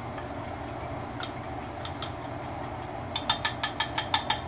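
A utensil clinking against a glass measuring cup of oil-and-spice seasoning: light scattered clicks, then a quick run of about eight sharp clinks near the end.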